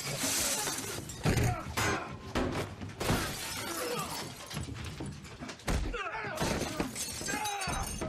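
Glass shattering, then several heavy blows and thuds in quick succession, with men grunting and crying out during a fistfight.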